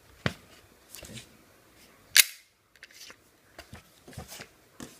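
A VFC Glock 19 gas blowback airsoft pistol firing one loud, sharp shot about two seconds in, with quieter clicks from handling the pistol before and after.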